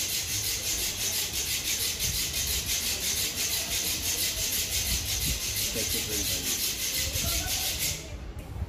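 A steady, rhythmic rasping hiss, pulsing about four times a second, that cuts off abruptly near the end.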